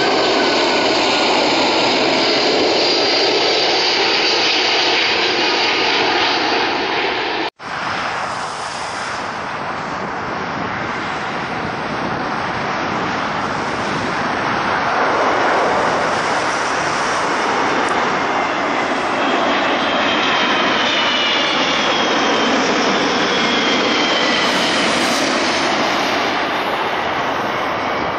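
Jet airliner engines on landing approach: a Boeing 747 freighter, then, after a sudden cut about seven seconds in, a Boeing 777 passing close with gear down. A steady, loud jet rush with whining tones that slide down in pitch.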